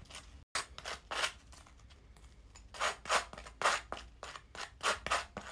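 Table knife scraping across a slice of crisp toast in a series of short, irregular spreading strokes.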